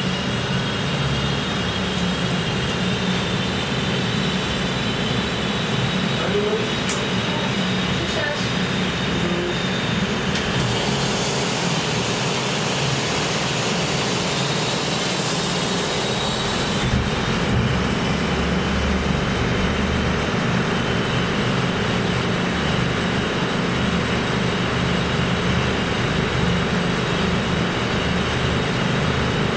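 Eurocopter EC135 air-ambulance helicopter running on its pad with the main rotor turning, a steady turbine whine over the rotor and engine noise.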